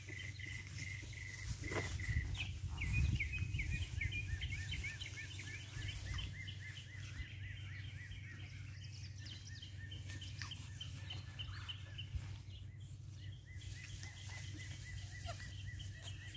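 Birds chirping: a run of quick repeated notes for several seconds, with a thin steady high note and a low rumble underneath.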